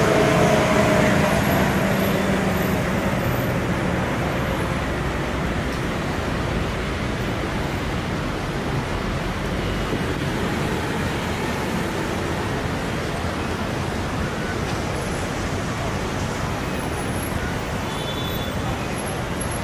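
Steady city street traffic noise, a continuous wash of passing cars and buses. A vehicle's engine hum fades away over the first few seconds.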